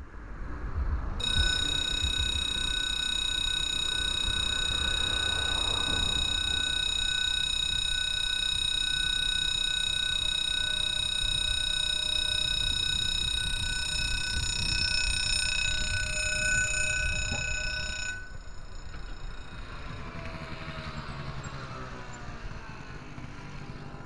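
Level-crossing warning bell giving a steady electronic ring while the barrier arm comes down. It starts about a second in and cuts off sharply after about seventeen seconds, over a low rumble.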